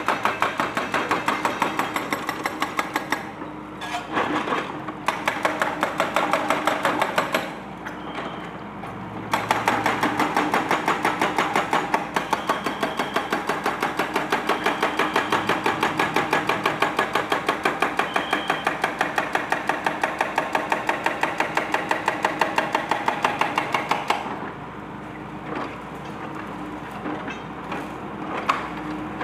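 Hydraulic breaker on an excavator hammering concrete in rapid, evenly spaced blows. It pauses briefly a few times early on and stops about four-fifths of the way through.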